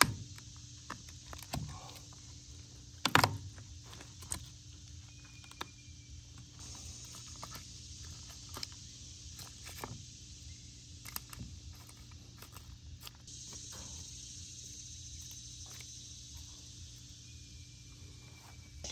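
A knife and hands work meat out of a snapping turtle's shell: scattered soft clicks and scrapes, with one sharp knock about three seconds in. Under it runs a steady high drone of insects.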